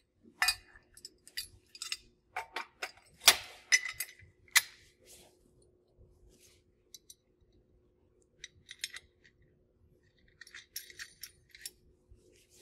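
Steel bolts, nuts and a mounting bracket clinking and rattling as they are handled and fitted onto a belt positioner frame: sharp metal clinks in the first few seconds, the loudest about three seconds in, then a quieter stretch and a cluster of small clicks near the end. A faint steady low hum runs underneath.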